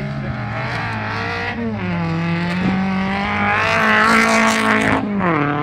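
Rally car engine revving hard as the car drives along a gravel stage, loudest about four seconds in. Its pitch falls sharply about one and a half seconds in and again near the end, climbing in between.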